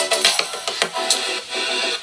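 Electronic music with a busy drum beat, played on a Tylex XM21 Bluetooth speaker for a bass test. The hits are choppy at first and the sound grows steadier after about a second.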